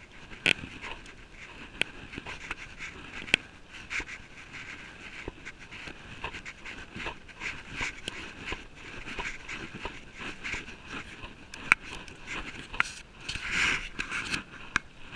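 A cyclist breathing hard while pedalling, panting in a quick, even rhythm, with a louder breath near the end. Scattered sharp clicks come through alongside.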